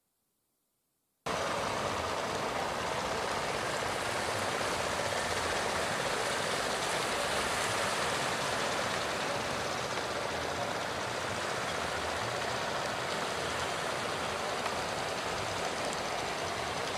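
Steady rushing noise of rough estuary water and surf, cutting in abruptly about a second in after near silence.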